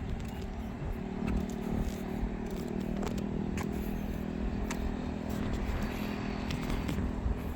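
An engine hums steadily, with low rumble and a few scattered light clicks.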